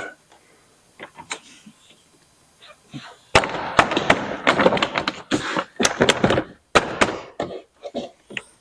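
Plastic door trim panel being pressed onto a car door, its retaining clips snapping into place: a few faint clicks, then about three seconds in a quick run of loud, sharp knocks and snaps.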